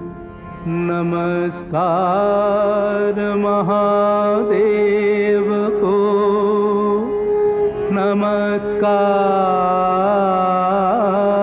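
Indian classical-style film song: a singer holds long, ornamented lines that waver in pitch over a steady drone.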